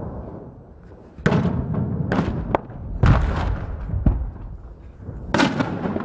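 Heavy gunfire in street fighting: about six sharp bangs, roughly a second apart, each with a short echo, over a steady low rumble.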